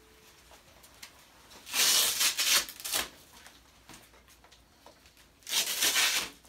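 Hook-and-loop (Velcro) fastener on the knee arthrometer's black strap being ripped apart twice, each a rasping tear of about a second, the second near the end.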